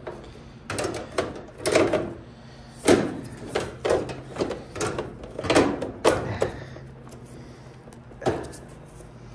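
Metal dryer cabinet parts being handled and fitted back into place during reassembly: a string of irregular knocks and clunks, fewer and fainter after about seven seconds, with a low steady hum underneath.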